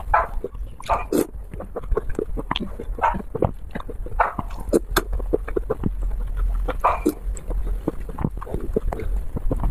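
Noodles being slurped from a bowl of broth, with a stronger drawn-out slurp every second or so between many short wet clicks and lip smacks of chewing.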